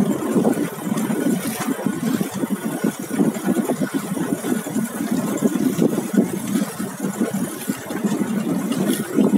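Running noise aboard a motorboat under way: an outboard engine mixed with wind buffeting the microphone and water slapping the hull, steady and fluttering throughout.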